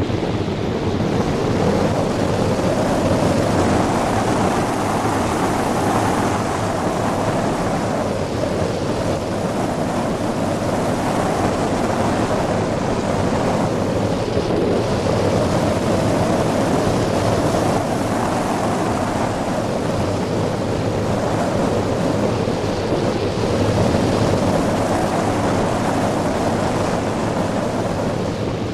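Wind rushing over the microphone of a hang glider in flight: a loud, steady roar of air that swells and eases every few seconds.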